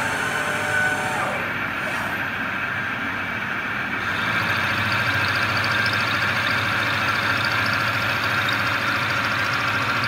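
Mikron WF21C milling machine running a 10 mm HSS end mill through a metal plate: the spindle drive and the cutter's chip-cutting make a steady mechanical noise. The noise grows louder about halfway through.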